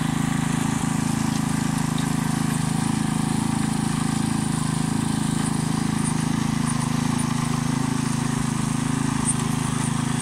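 Small petrol engine of a walk-behind rotary tiller running steadily while its tines churn the soil.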